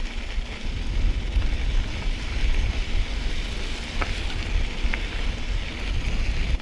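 Wind buffeting the microphone over a steady hiss of mountain bike tyres rolling along the trail while riding, with a couple of faint ticks.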